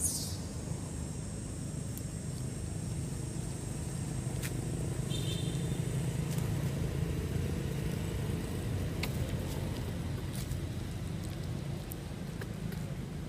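Low, steady rumble of a motor vehicle's engine running nearby, growing a little louder in the middle and easing off near the end. A brief high squeak at the start and a short chirp about five seconds in sit over it.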